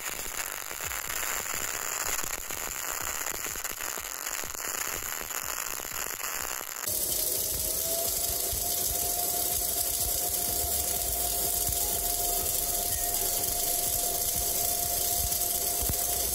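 Semi-automatic wire-feed arc welding: the arc giving a steady, dense crackling hiss. About seven seconds in it cuts to a second, louder weld with a steady whine running under the crackle.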